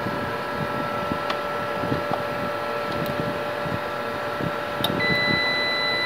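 Mercury UPS running on mains, with a steady electrical hum and whine. About five seconds in a click sounds and a high steady tone starts, as the UPS shifts into battery-charging mode.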